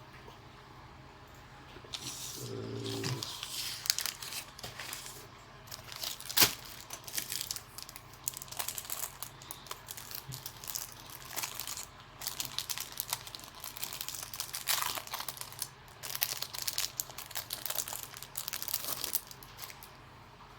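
Plastic packaging crinkling and rustling in irregular handfuls as hair-cutting tools are unwrapped, with a sharp click about six seconds in.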